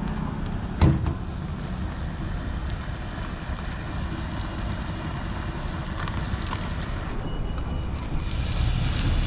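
Steady low rumble of background noise, with one sharp knock about a second in. Near the end a brighter sizzling hiss comes up as the curry in the iron kadhai is stirred.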